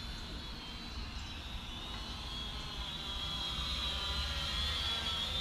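Syma X500 quadcopter's motors and propellers buzzing in flight: a high whine that wavers slightly in pitch and grows louder about three seconds in, over a low rumble.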